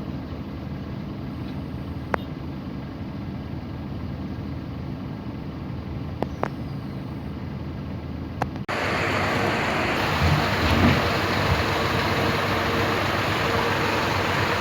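A car's engine and road noise running steadily, with a few sharp clicks. About two-thirds of the way through, it changes abruptly to a louder, steady hiss.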